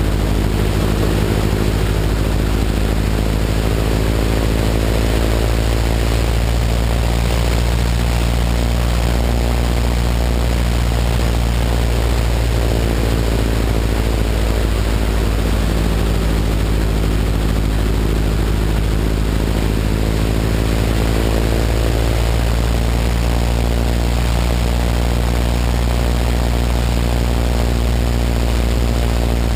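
Open-cockpit biplane's engine and propeller running steadily in flight, a constant low engine note with wind rushing over the wing-mounted microphone.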